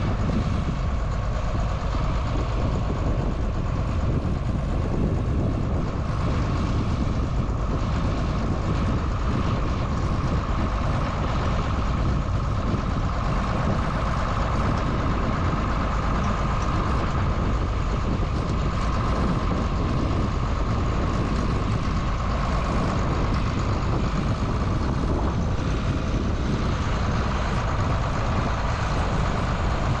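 John Deere 4440 tractor's six-cylinder turbo diesel running steadily under load, a steady high whine riding over the low engine rumble.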